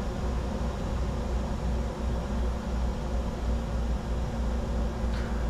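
Steady cockpit noise of a Bombardier Challenger 605 business jet in descent: an even rush of airflow and air conditioning over a low hum.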